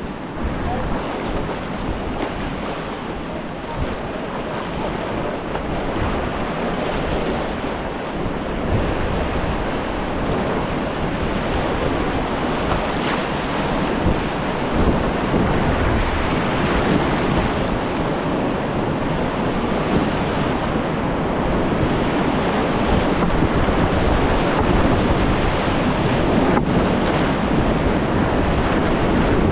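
River rapid rushing steadily, growing gradually louder, with wind buffeting the microphone.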